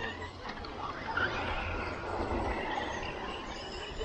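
Electric 1/8-scale short-course RC truck on a 4S LiPo driving on a dirt track: a steady whir of its motor and tyres, a little louder about a second in.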